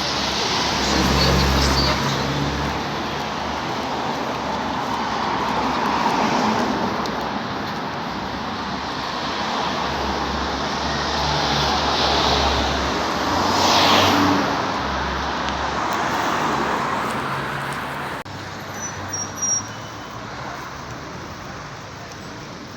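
Strong wind gusting and rumbling on the microphone over a steady wash of road traffic noise. The noise drops suddenly a few seconds before the end.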